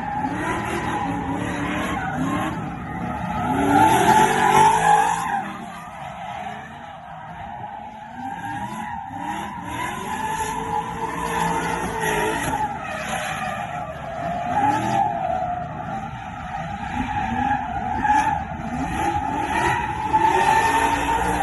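VE Commodore drift car sliding, its tyres squealing steadily while the engine revs rise and fall beneath. The squeal is loudest about four to five seconds in.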